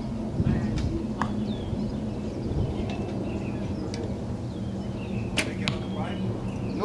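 A recurve bow shot: the bowstring snaps on release a little over five seconds in, and the arrow strikes the target a split second later. A couple of small clicks come near the start, and birds chirp over a steady low hum.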